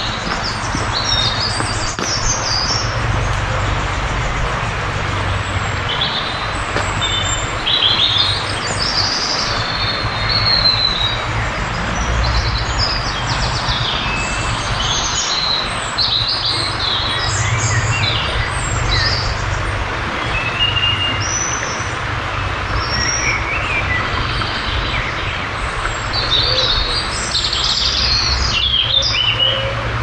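Many songbirds singing at once in spring woodland: a dense mix of chirps, trills and short whistled phrases overlapping throughout, over a steady low rush.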